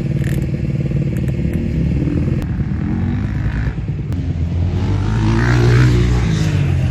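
Two-stroke Honda CR125 motocross engine running under load, its pitch rising and falling as it is revved up and eased off; it starts suddenly.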